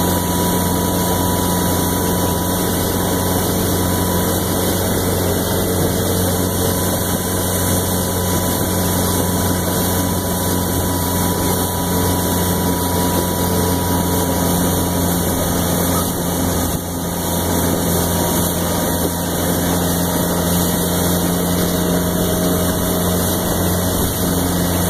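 Motorboat engine running steadily at about 30 mph while towing a tube, with a constant low hum over the rush of wind and water.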